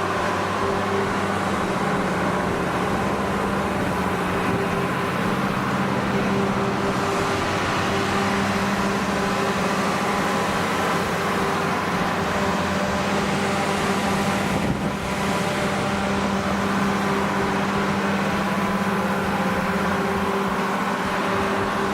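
Cummins 8.3-litre inline six-cylinder diesel engine of a 150 kW generator set running steadily at constant speed, a loud even drone with a steady hum in it.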